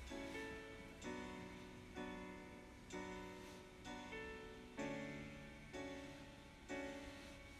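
Background piano music: a new chord is struck about once a second and dies away before the next.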